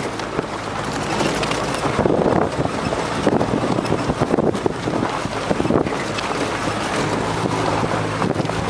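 Off-road 4x4's engine running in a low gear as it climbs a snowy forest track, heard from inside the vehicle. It is mixed with a dense, irregular crackle of tyres on snow and rattles from the body. The engine's hum grows steadier and plainer about seven seconds in.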